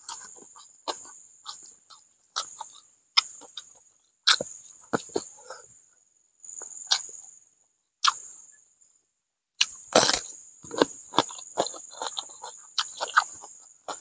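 Close-miked eating sounds: wet chewing and lip smacks of fried catfish and rice eaten by hand, and crisp bites of raw cucumber, with the loudest crunch about ten seconds in. A thin, steady high insect buzz runs underneath in stretches.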